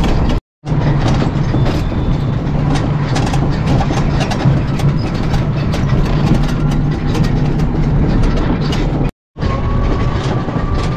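Motorcycle engine running steadily with wind rushing over the microphone while riding, cut off abruptly by two brief gaps of silence, one just after the start and one near the end.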